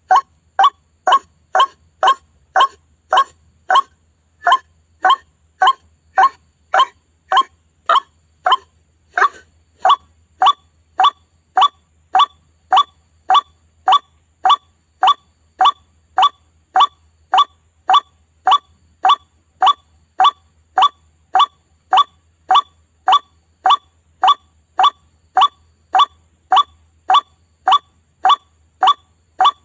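White-breasted waterhen calls played as a lure: short, pitched 'ruak' notes repeated steadily about twice a second, with one brief gap about nine seconds in.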